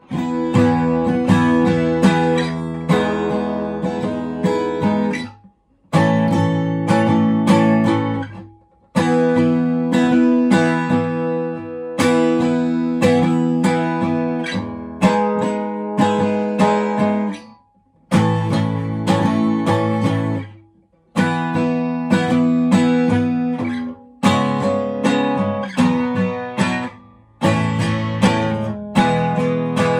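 Sigma steel-string acoustic guitar strummed in chords, the strumming stopping short for a moment every few seconds before the next phrase starts.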